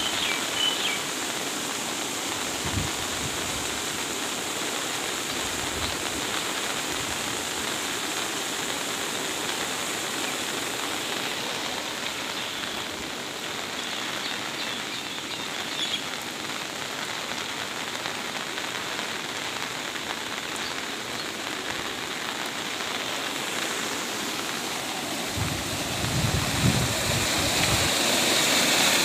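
Steady rushing hiss of heavy rain together with a swollen, muddy floodwater stream flowing fast, with a few low thumps near the end.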